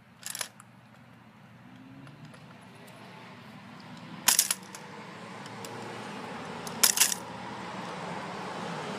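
Aluminium crutch clanking and scraping on concrete as a puppy drags it by one end: three short metallic clatters, just after the start, about four seconds in and about seven seconds in. A low background rumble grows steadily louder.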